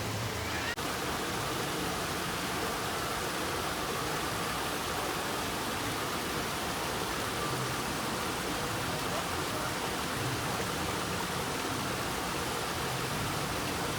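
Running water rushing steadily, a broad, even hiss with no pitch or rhythm, typical of a waterfall or fast stream.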